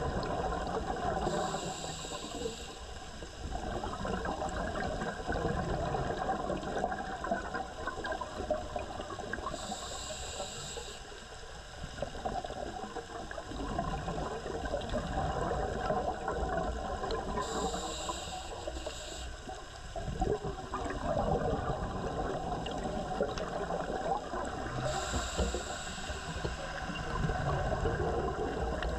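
A scuba diver breathing through a regulator, heard underwater: a short hiss of inhalation about every eight seconds, four times, between longer stretches of bubbling exhaust from the exhale.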